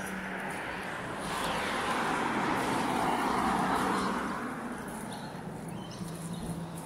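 A car passing by, its tyre and engine noise swelling about a second in and fading away after about four seconds.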